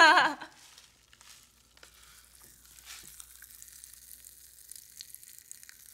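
Pop Rocks popping candy crackling faintly in the mouth: an irregular sizzle of tiny pops.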